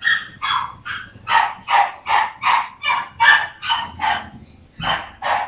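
A dog barking in a steady run of about a dozen short, sharp yaps, two or three a second.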